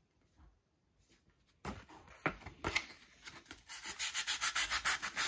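Sandpaper rubbing on a dried paper-clay tray. It starts with a few scattered strokes, then settles into quick, even back-and-forth strokes, several a second, through the second half.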